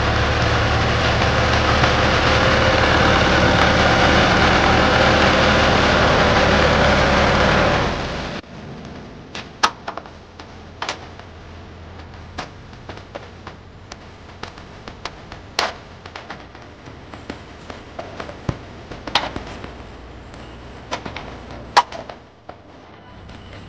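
New Holland 640 tractor's diesel engine running loud and steady as its front blade pushes soil. It cuts off about eight seconds in, giving way to a quieter stretch of scattered sharp knocks and slaps as clay is worked and pressed into metal brick moulds by hand.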